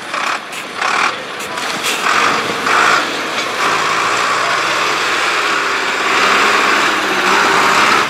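Zetor tractor's diesel engine working under heavy load as it drives through a dirt trench. It surges unevenly for the first couple of seconds, then runs loud and steady.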